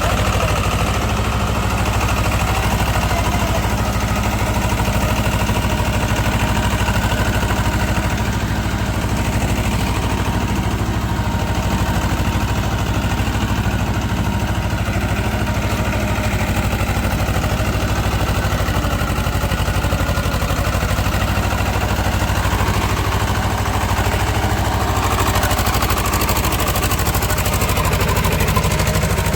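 Diesel engine of a Swaraj tractor running at a steady speed, with a constant low drone.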